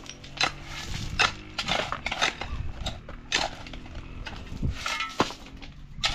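Steel shovels and a pick striking and scraping stony, gravelly soil as several people dig at once. Irregular clinks and scrapes come about one or two a second, metal on rock.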